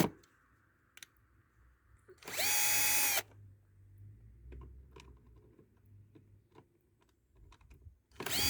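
Electric drill-driver backing out the cover screws, run twice for just under a second each, its motor whine rising quickly then holding steady. Small clicks and handling knocks come between the runs.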